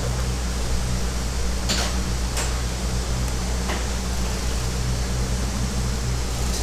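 Steady low hum and hiss of room noise, with a few faint clicks from pliers and the metal zipper slider being worked, around two seconds in and again nearer four.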